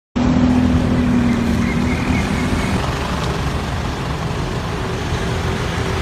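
Road traffic, with cars and a pickup truck driving past. A low engine hum stands out for about the first two seconds, then steady traffic noise carries on.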